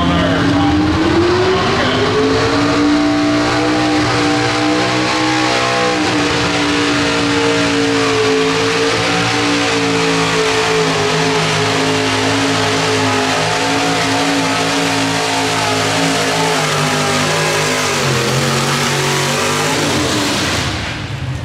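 Pro stock mini pulling truck's engine winding up over the first few seconds, then held at high revs at full throttle through open exhaust stacks as it pulls the sled. It backs off near the end.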